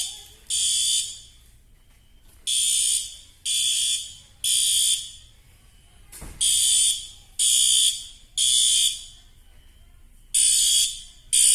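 Fire alarm horn sounding the temporal-three evacuation pattern: harsh, high beeps in groups of three, about a second apart, with a longer pause between groups. A single sharp knock about six seconds in.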